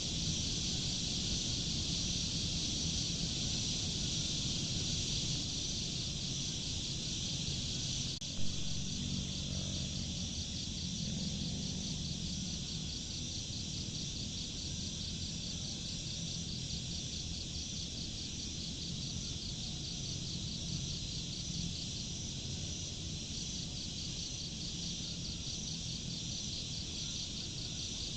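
A steady chorus of chirping insects, a fast, even high-pitched pulsing that keeps on throughout, over a low steady background noise. A single short knock sounds about eight seconds in.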